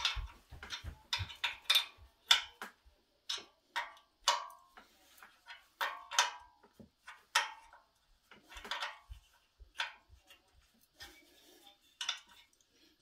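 A hand wrench clicking and clinking on metal as the Honda Z50's bottom exhaust flange nuts are tightened: irregular sharp clicks, a few a second, some with a short metallic ring.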